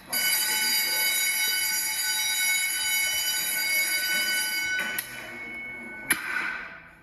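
Fire alarm bell ringing loudly for about five seconds, then more faintly, ending with a sharp clunk about six seconds in.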